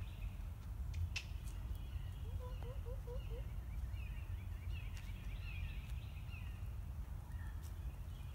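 Wind rumbling on the microphone, with faint bird chirps scattered through it and a quick run of four short chirps about two to three seconds in.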